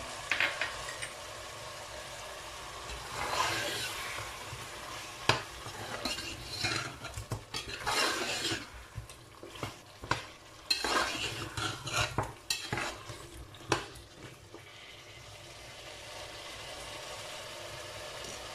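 Beef and masala curry sizzling in a metal pot, just after tomato puree has gone in with the fried meat and spices. From about three seconds in, a metal spoon stirs and scrapes against the pot with repeated clinks. The stirring stops about fourteen seconds in, and the steady sizzle carries on alone.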